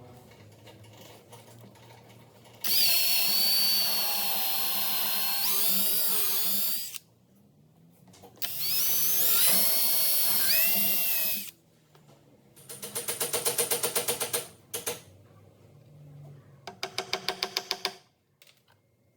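Power drill running in two long bursts of a few seconds each, its whine shifting in pitch, then two shorter stretches of fast, even pulsing.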